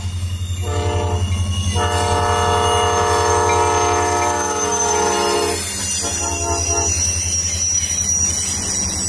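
Diesel locomotive's air horn sounding in separate blasts: a short one about half a second in, a long one of about four seconds from about two seconds in, and a fainter short one near six seconds. A deep, pulsing engine rumble runs underneath.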